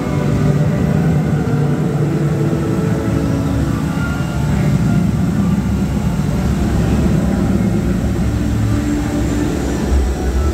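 Dancing fountain show music playing loud over speakers, a low droning passage of steady bass tones, mixed with the rush of the fountain's water jets.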